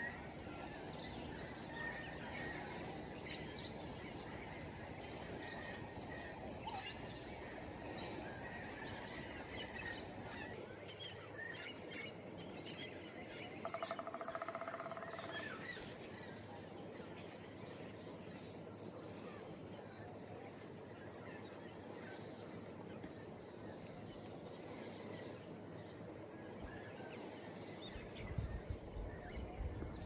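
Tropical forest ambience: a steady background hiss with scattered faint bird chirps and calls, and one clearer pitched bird call about halfway through. A few low rumbling thumps come near the end.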